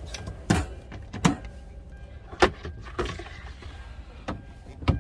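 Wooden cabinet doors and a slide-out wooden shelf in a camper van's fitted cabinetry being opened, shut and pulled out. About six sharp knocks and clicks come at irregular intervals.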